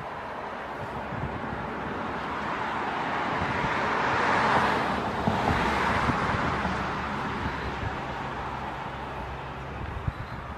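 A car driving past: its tyre and engine noise swells to a peak about halfway through, then fades away.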